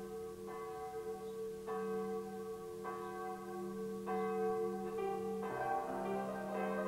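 Church bell tolling, a new stroke a little more than once a second over a held low hum, each stroke ringing on. From about five seconds in, more tones crowd in as music builds.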